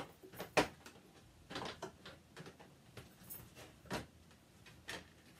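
Hard plastic dollhouse parts clicking and knocking together as pieces are fitted into place: a handful of short clacks, the loudest about half a second in, another near four seconds in.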